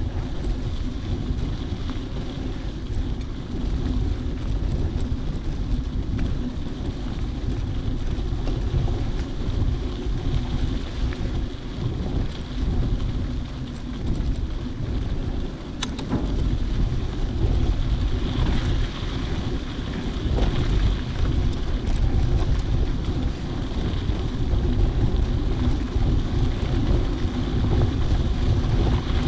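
Wind buffeting the microphone: a steady low rumble that swells and eases.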